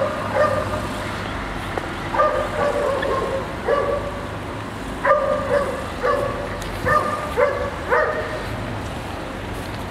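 A dog barking: about nine short barks at irregular intervals, over a low steady rumble.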